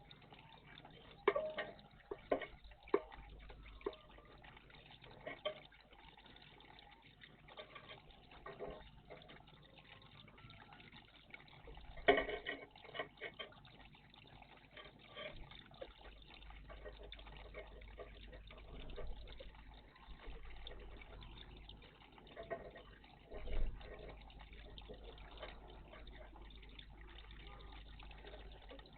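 Small birds bathing in a garden bird bath: irregular splashes and flicks of water over a faint steady background, with the loudest splash about twelve seconds in.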